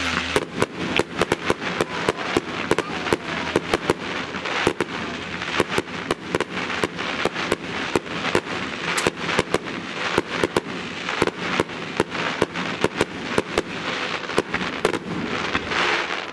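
A fireworks display going off in rapid succession: many sharp bangs and cracks, several a second, over a steady hissing crackle.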